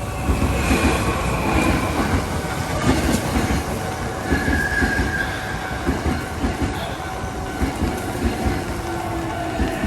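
Hankyu electric train passing at close range, wheels clattering in quick irregular knocks over the rail joints, with a high whine.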